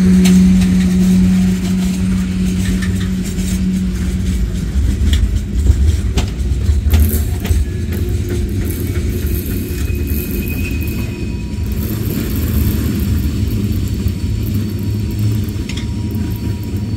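The last tank cars of a freight train rolling past on the rails, with a steady hum that stops about four seconds in and a few sharp clanks around six seconds in, then the train's low rumble carrying on as it pulls away.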